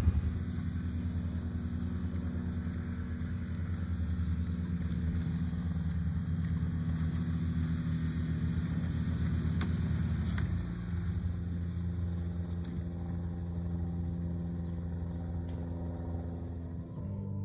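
Engine of a side-by-side utility vehicle running steadily as it tows a cow dummy, its tone changing about ten seconds in.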